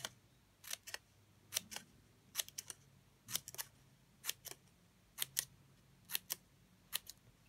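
Small craft scissors snipping short cuts into the edge of a patterned paper cone to make a frill: crisp snips about once a second, many as quick pairs.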